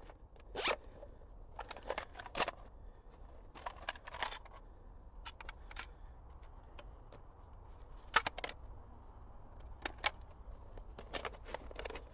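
Zip of a canvas pouch being pulled open and shut, in short scratchy strokes at irregular intervals, with rustling and small clicks of kit being handled.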